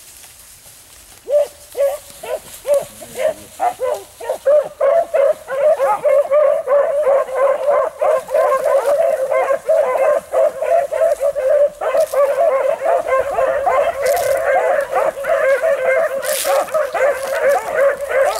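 Rabbit hounds baying as they run a rabbit's track. A few scattered cries start about a second in, then from about four seconds on the pack gives steady, overlapping cries that keep growing louder.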